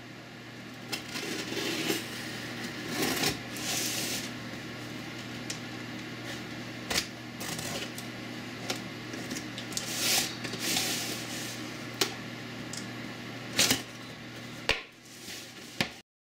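A cardboard shipping box being cut open with a utility knife and its flaps pulled back: irregular clicks and knocks, with short scraping swishes of the blade through the packing tape and cardboard, over a faint steady hum. It cuts off suddenly near the end.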